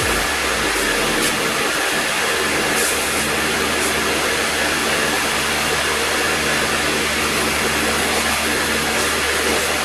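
Pressure washer spraying water onto a split-type air conditioner's indoor unit during cleaning: a loud, steady rushing hiss.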